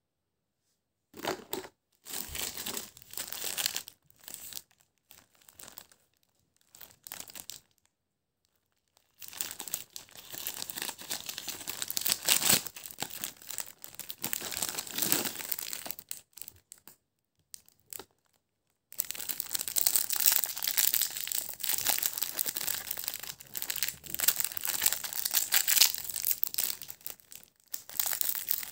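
Clear plastic snack wrapper crinkling and rustling as a packaged cracker is handled, in short bursts at first, then in long dense stretches with a pause in between.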